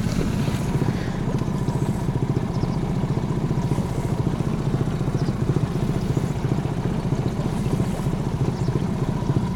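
Boat's outboard motor running steadily, a fast even throb while trolling, with a faint steady high whine over it.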